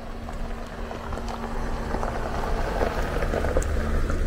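Jeep driving up and past on a gravel road, its engine hum and tyres crunching gravel getting louder as it comes near.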